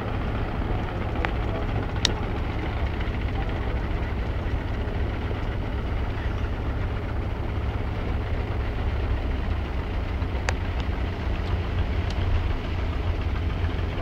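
Boat engine running steadily, a continuous low rumble with a wash of noise over it.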